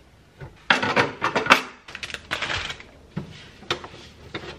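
Clicks and clatter of an espresso machine's drip tray and its metal grate being handled and set in place, with a short stretch of cloth rubbing in the middle. The clatter is busiest about a second in.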